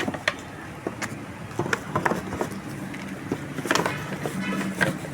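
Pressure washer parts and accessories being handled and packed into their box: scattered knocks, clicks and rustles, over a faint low steady hum.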